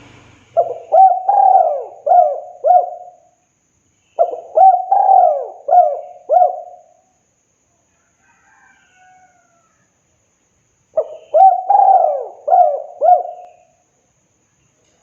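Spotted dove (tekukur) cooing: three phrases of several rhythmic hooting coos each, the third after a longer pause.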